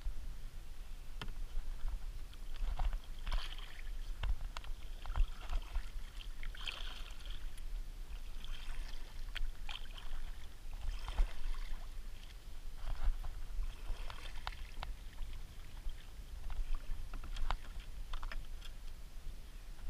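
Kayak paddle strokes through shallow water among reeds: splashing and dripping water, reed stems brushing the plastic hull, and scattered knocks and clicks.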